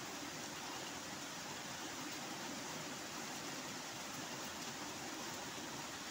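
Steady hiss of rain falling, without any break or thunderclap.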